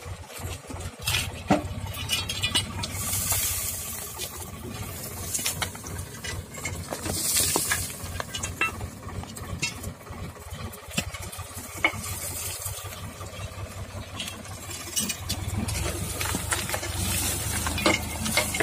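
Sonalika DI 47 tractor's diesel engine running as it hydraulically tips its fully loaded trolley. The low engine rumble grows louder in the last few seconds as the tipper raises the body, with rustling and scattered light clicks throughout.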